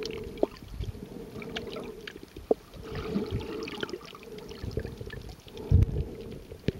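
Muffled underwater water movement picked up by a submerged camera: an uneven wash with scattered sharp clicks and low thumps, the loudest thump just under six seconds in.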